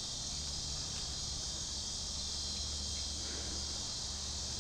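Steady high-pitched chorus of insects outdoors, with a faint steady low hum underneath.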